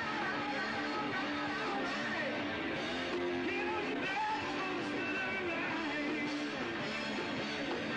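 A rock band playing, with electric guitar prominent and some singing.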